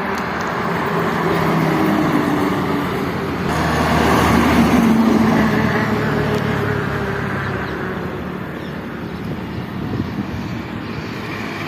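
Bus engine running with a shifting pitch, loudest about four to five seconds in, then easing off.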